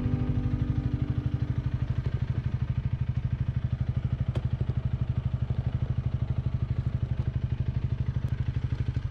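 Honda Rebel 250's single-cylinder four-stroke engine idling with an even low throb of about ten beats a second, which stops abruptly near the end.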